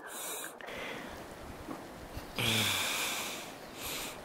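A few noisy, breathy breaths close to the microphone, one with a brief low hum at its start partway through.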